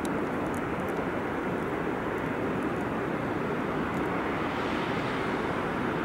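EP2K electric locomotive hauling a passenger train as it approaches: a steady rumble and rush of the train on the rails, growing a little brighter near the end, with a few faint ticks about a second in.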